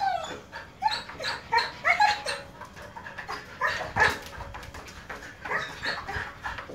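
Siberian husky whining and yipping in a run of short calls, about two a second, with one louder call about four seconds in.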